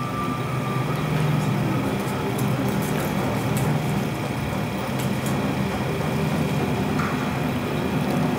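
A steady low rumbling drone from a projection show's soundtrack, played over speakers.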